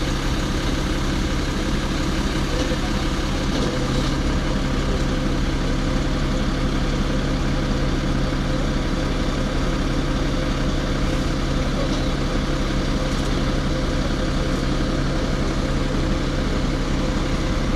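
Diesel engine of a fire brigade aerial platform truck running at a steady idle, powering the hydraulics while the boom lifts its basket.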